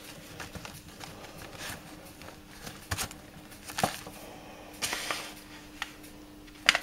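Paper seed packets rustling and tapping against a clear plastic box as they are handled and leafed through, a few short rustles and taps spaced over several seconds.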